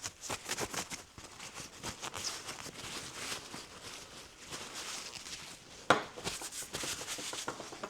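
Quick, irregular scratchy strokes of a small brush scrubbing a metal engine part from the cylinder head, with a sharp knock about six seconds in.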